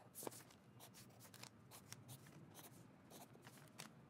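Faint scratching of a marker drawn along a plastic ruler on paper, in short strokes, with a sharper tick about a quarter second in as the ruler or marker touches down.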